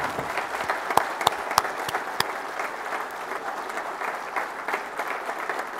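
An audience applauding: many people clapping their hands together at a steady level.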